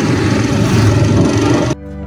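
Wind rush and engine noise from a motorcycle riding along a road. About three-quarters of the way in it cuts off sharply, and a short editing transition sound with steady stacked tones begins.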